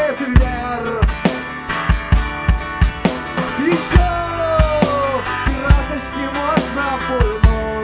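Live rock band playing an instrumental passage: a steady kick-drum beat, about two hits a second, with guitars and a gliding lead melody.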